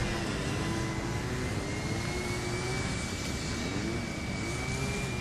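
Twin jet engines of a large radio-controlled A-10 Warthog model running as it taxis: a steady high whine over a rushing noise, stepping up slightly in pitch about two seconds in.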